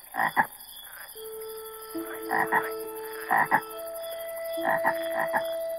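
A cartoon frog croaking in short calls, mostly in pairs, over a steady high chirring, with a few long held tones beneath.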